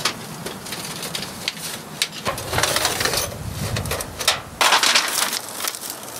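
Tent fabric rustling and shifting as the center pole is pulled out of a pyramid tent, with scattered clicks and knocks of the pole being handled. The loudest rustle comes about two-thirds of the way through.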